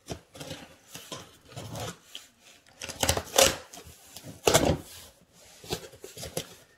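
Packing tape on a cardboard shipping box being cut and ripped open: irregular scraping and tearing, loudest in two bursts about three and four and a half seconds in.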